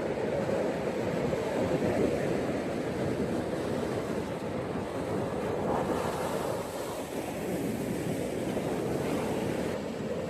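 Gentle ocean waves washing onto a beach, a continuous surf hiss that swells and eases softly, with a slight rise about two seconds in and another around six seconds in.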